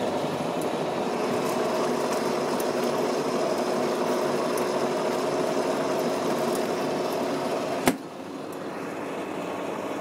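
Tefal Alternatic Program compact washing machine running a wash, its motor humming steadily as it churns the water and clothes. About eight seconds in the lid shuts with a sharp clack, and the machine sounds quieter after that.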